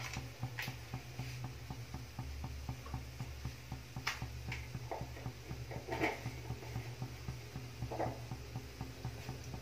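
Salted water at a full boil in a steel kadai on a gas burner, a fast patter of small bubbling pops over a steady low hum, with a few louder clicks.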